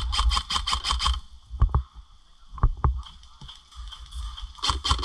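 Airsoft electric rifle firing on full auto, a rapid run of about eight shots a second that stops about a second in. A few single shots or clicks follow, and another full-auto burst starts near the end.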